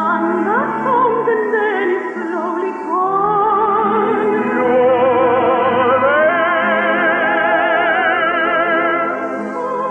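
Operatic singing with a wide vibrato over an orchestra, in long held notes that climb to a higher sustained note about six seconds in.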